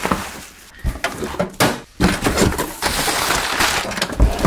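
Rustling and scraping of cardboard and foam packing as an oscilloscope is handled in its shipping box, with a few short knocks. The rustling grows denser about halfway through.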